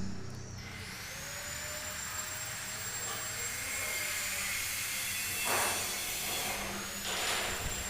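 Small electric power tool motor spinning up to a steady high whine and running, with two short bursts of hissing noise about five and a half and seven seconds in.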